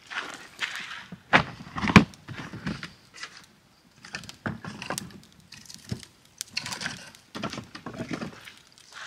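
Footsteps on gravel, then a loaded plastic storage tote set down with two heavy knocks about one and a half and two seconds in. After that come scattered wooden clunks and scrapes as split firewood is handled in the tote.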